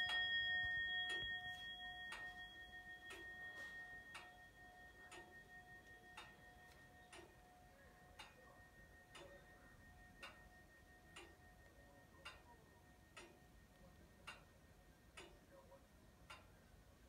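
French Comtoise clock: the bell's ringing from the last hammer strike fades away over the first several seconds, while the movement ticks steadily about once a second.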